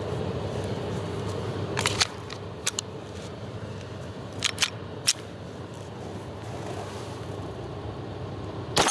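A few sharp metallic clicks and clacks of a Zev Glock pistol being handled as a standard magazine is put in and the gun made ready, then a single loud gunshot near the end.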